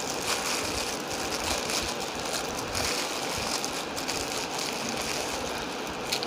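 Thin plastic bags crinkling and rustling steadily as hands open them and shift the packaged rusks inside.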